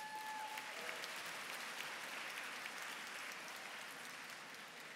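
A large audience applauding, the clapping fading gradually toward the end.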